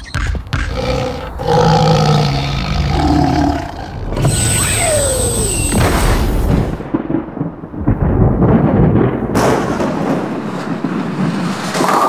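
AI-generated sound effects made in Adobe Firefly from voice imitations, cut one after another. There are roars in the first few seconds, then a sci-fi spaceship's thruster sound with a high steady whistle and a falling glide, then a deep rumble with booms.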